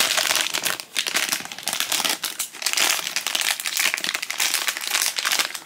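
Foil blind-bag packet crinkling and crumpling as it is squeezed and worked in the hands, a dense run of irregular crackles.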